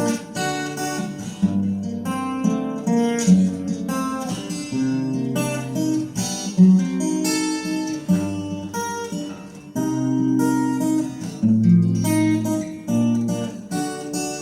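Acoustic guitar strumming chords in a steady rhythm: an instrumental passage of the song after the singing stops.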